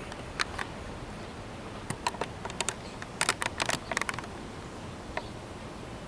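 Sharp clicks and taps from a handheld camcorder being handled as it is swung away and back, heard over a steady faint background hiss. The clicks come in a scattered run, thickest in the middle.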